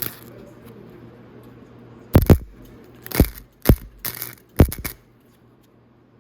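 A quick series of five or six sharp metal clinks and knocks, about two to five seconds in, over a faint steady hum.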